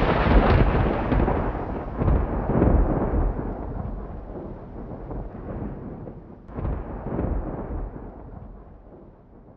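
Thunder sound effect: a long rolling rumble that swells again about two seconds in and once more near six and a half seconds, then dies away.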